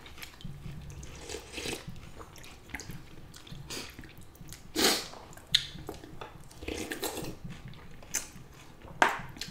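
Close-up eating sounds from bowls of pho and udon noodle soup: broth sipped from a spoon, noodles slurped and chewed, with scattered short clicks of utensils. A louder slurp comes about five seconds in.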